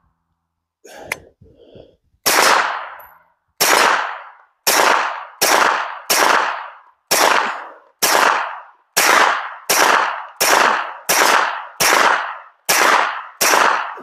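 Suppressed Glock 19 9mm pistol firing through a Rugged Alaskan 360 suppressor: fourteen shots at a brisk, slightly uneven pace, each with a short echoing tail. A few faint knocks and a click come before the first shot.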